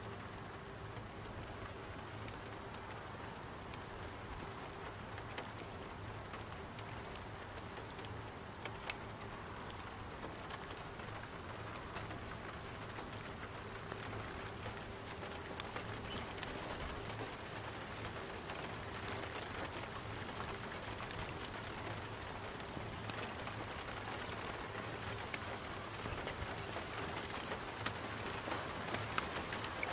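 Rain falling steadily, with many scattered drops ticking sharply against a nearby surface, over a faint steady low hum.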